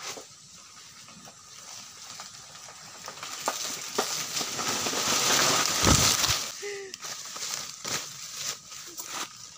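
A banana plant toppling: its leaves rush louder and louder through the canopy and it lands with a heavy thud about six seconds in. Afterwards footsteps crackle over dry banana leaves.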